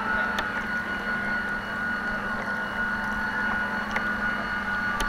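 Radio-controlled model boat's motor running steadily, a constant high whine with a low hum underneath, over the wash of water.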